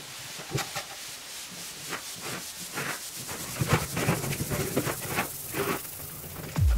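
Irregular scraping and knocking, roughly one to two short strokes a second over a faint hiss, growing busier about halfway through.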